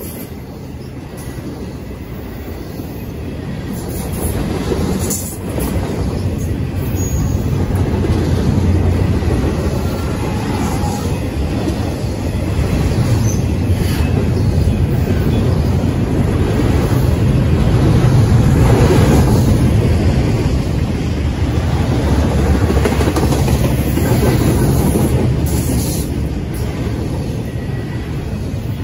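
Double-stack intermodal freight train rolling past: a steady rumble of the well cars, with the clack of wheels over rail joints now and then.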